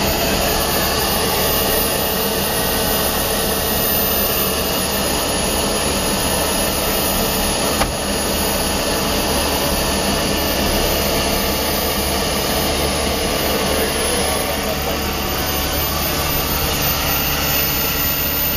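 Turbine engine of a turbine hybrid electric car running steadily, a constant jet-like rush with a few fixed steady tones in it. A brief click about eight seconds in.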